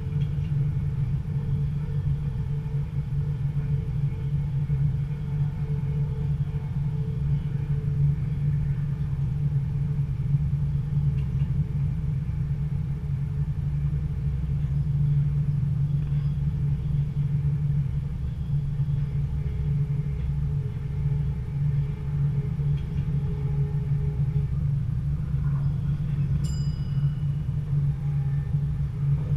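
Stadler GTW diesel-electric multiple unit running along the line: a steady low rumble of its engine and wheels on the rails. A brief high chirp sounds near the end.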